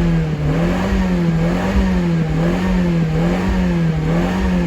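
A 2018 Fiat 500's turbocharged four-cylinder engine held at raised revs, its pitch climbing slightly at first and then wavering gently up and down. The engine runs rich on a persistent misfire, which the mechanic puts down to a weak spark from damaged spark plugs after diesel contamination.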